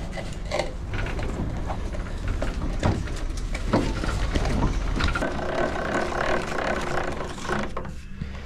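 A mechanism running steadily with a rattle of many small clicks.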